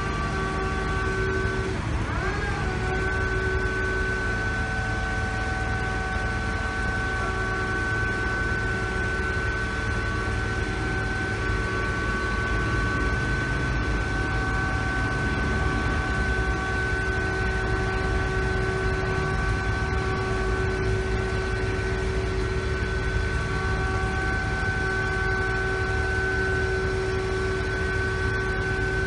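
Soilmec SM-14 mini piling rig running steadily: a constant engine rumble with a steady high whine from its machinery. The pitch dips briefly and recovers about two seconds in, as if the machine takes on load.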